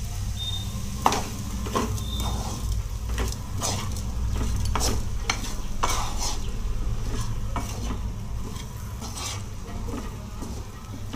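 Wooden spatula stirring and scraping cauliflower, potato and peas through masala in a nonstick kadai. Irregular knocks and scrapes against the pan sound over the sizzle of the spiced vegetables frying.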